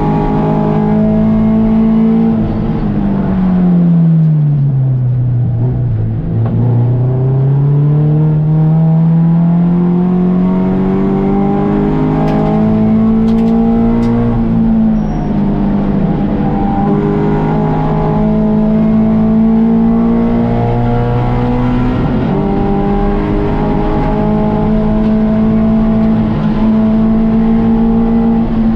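Touring 4 race car engine at racing speed. It is held at high revs, drops steeply a few seconds in as the car slows for a corner, then climbs steadily back up under acceleration with a brief dip near the middle at a gear change, and holds high revs again toward the end.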